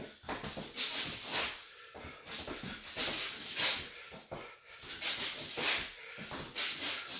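A boxer's sharp, hissing exhales while shadowboxing hooks, about ten short breaths, often in quick pairs, one breathed out with each punch.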